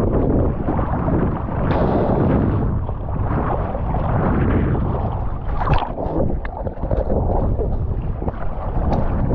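Ocean water sloshing and splashing close to the microphone, with wind buffeting it; the churning comes in surges, with a few sharp splashes around the middle.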